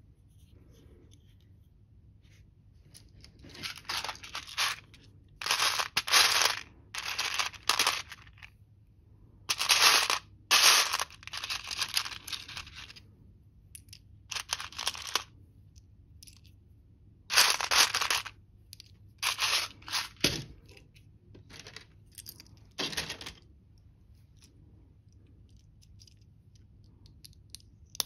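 Loose plastic LEGO pieces rattling and clattering in a tray as a hand rummages through them, in bursts of a second or two with short pauses between.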